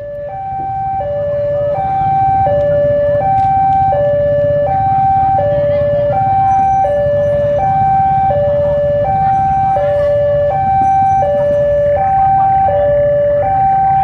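Railway level-crossing warning alarm sounding its two-tone high–low signal, a little under one pair every two seconds, warning that a train is approaching. It fades in over the first couple of seconds, over a low rumble.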